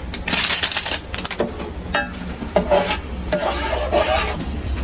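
A metal spoon stirring china grass (agar) strands in water in an aluminium bowl, scraping and clinking against the bowl, over a steady low rumble.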